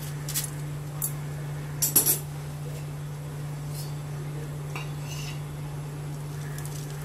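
Metal kitchen tongs clinking against a foil cup and the steel pot as a lump of charcoal is set on the curry for smoking: a few short sharp clinks, the loudest cluster about two seconds in, over a steady low hum.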